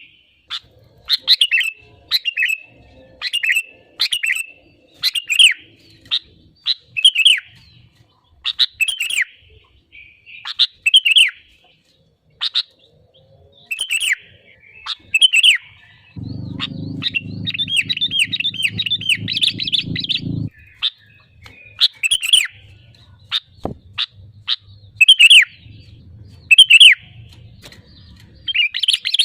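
Sooty-headed bulbul (kutilang) calling: short, bright phrases repeated about once a second, breaking into a fast chattering run a little past halfway, with a low hum under that run.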